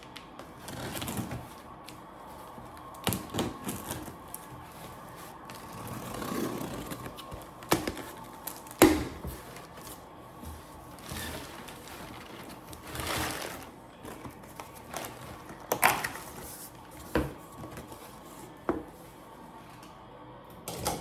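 A package being opened by hand: scattered knocks and clicks with short stretches of rustling from cardboard and packing, the loudest knock about nine seconds in.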